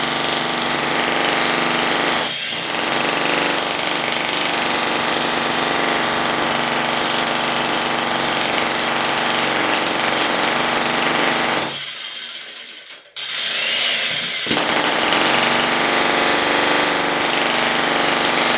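Sky 65 mm electric jackhammer running at full power, chiselling into and breaking up a concrete slab, loud. It stops for about two seconds about two-thirds of the way through, then starts hammering again.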